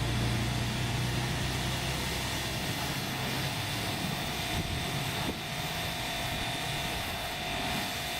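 Car Member C200 high-pressure washer running: a steady motor hum with a constant whine and an even hiss, the low part of the hum easing off about three seconds in.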